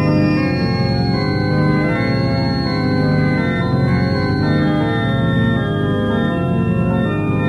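Organ-toned keyboard playing slow, held chords, from a black metal band's 1995 demo tape.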